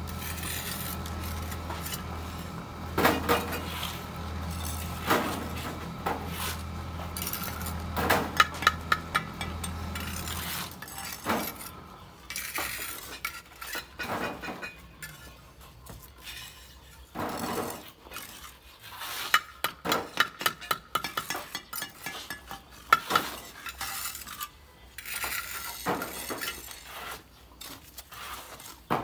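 Steel bricklaying trowel clinking and scraping against bricks and mortar in irregular taps, some in quick runs. A low steady hum underneath stops about ten seconds in.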